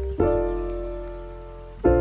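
Background music: soft sustained keyboard chords over a deep bass. A new chord is struck about a fifth of a second in and again near the end, and each one slowly fades.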